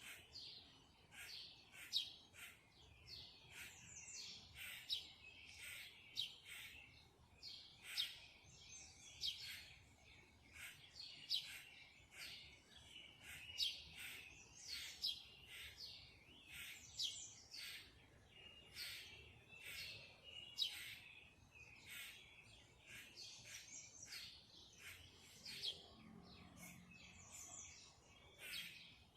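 Songbirds chirping: a steady run of short, high chirps and tweets, about two a second.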